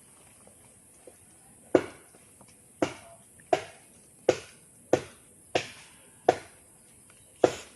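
Repeated sharp knocks, about eight strikes spaced a little under a second apart, beginning about two seconds in, each ringing briefly.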